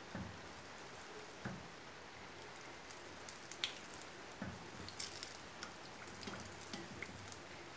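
Konda kavum batter deep-frying in a pan of hot oil: a faint, steady sizzle with scattered small pops and crackles.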